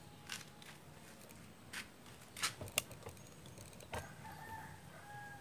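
Scattered light clicks and taps of a metal putty knife working plastic body filler on its plate. From about four seconds in, a drawn-out animal call sounds in the background.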